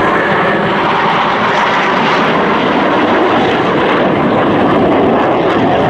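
Formation of KAI T-50B jet trainers flying overhead, their turbofan engines making a loud, steady jet noise.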